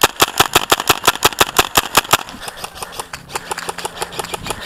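Airsoft rifle firing on full auto, a rapid clatter of shots at roughly eight to ten a second in long strings, with a low steady hum under it in the second half.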